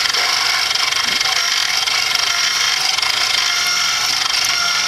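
Mini milling machine's spindle running steadily while a number 7 twist drill bores through aluminum bar stock: a steady machine whine with several faint tones.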